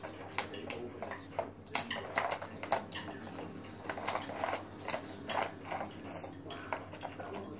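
Puppy nosing and pawing at a plastic bone-shaped puzzle feeder, its hard plastic caps knocking and clicking irregularly as the puppy works to get at the treats.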